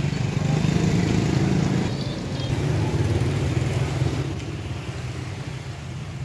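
Motorbike engines running in street traffic: a steady low rumble that eases a little after about four seconds, over general street noise.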